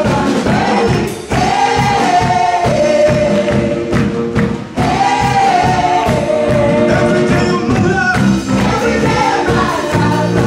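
Live gospel worship song: lead and backing voices singing together over a band with drums and electric guitar, keeping a steady beat.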